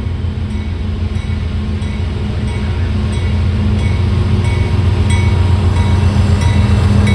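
Diesel locomotives of an approaching CSX freight train, their engines droning steadily and growing louder. Faint short high ticks repeat about twice a second over the drone.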